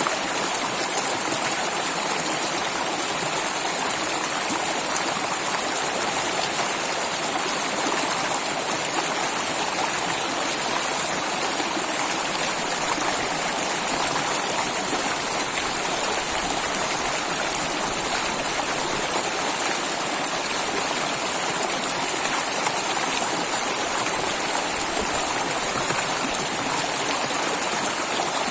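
Flowing water, an even, unbroken rush that holds steady throughout.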